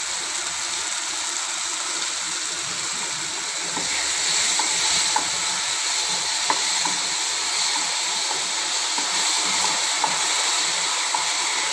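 Thick tomato-and-capsicum masala sizzling steadily in a nonstick kadai over a gas flame. From about four seconds in it gets a little louder as a wooden spatula stirs it, with light ticks of the spatula against the pan.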